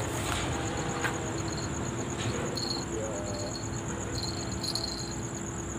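Insects trilling steadily, a continuous high pulsing trill with a second buzzing call that comes and goes, over a low even rumble.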